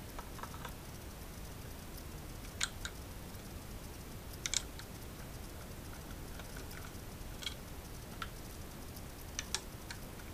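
Small metallic clicks and taps of a screwdriver working screws on a hard drive's metal mounting bracket, with the bracket handled between turns: scattered single ticks and a quick double click about four and a half seconds in.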